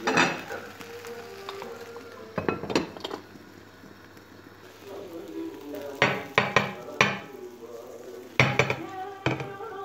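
Cookware clattering: a glass pan lid and a frying pan knocking and clinking against each other and a glass plate as the omelette is covered and turned out. There is one knock at the start and a pair about two and a half seconds in, then two busier bursts of clinks in the last four seconds.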